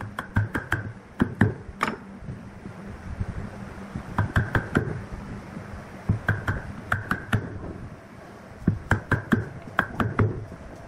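Chisel pushed and jabbed by hand into a wooden block, chopping out a mortise: quick runs of sharp knocks, several a second, with short pauses between.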